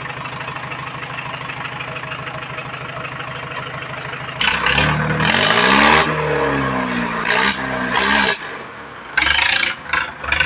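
Mahindra 585 tractor's four-cylinder diesel engine idling steadily, then revved up and let back down twice about halfway through, dropping back before a short rush of noise near the end.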